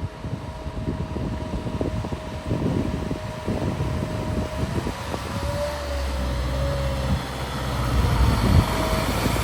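A road vehicle's engine running, with a steady low hum that comes in about halfway through and grows louder as it draws near.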